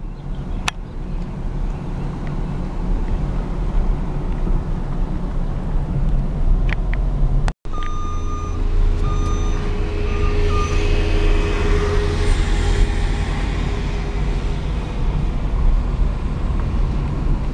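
Car interior road noise while driving: a steady low rumble of engine and tyres. Just after a brief cut about halfway through, steady beeping tones sound on and off for a few seconds, and a hiss swells and fades as if a vehicle is passing.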